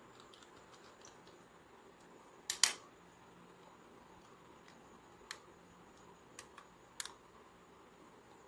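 Sharp clicks and taps of small laptop parts being handled during reassembly: a loud double click about two and a half seconds in, then a few lighter clicks between about five and seven seconds in.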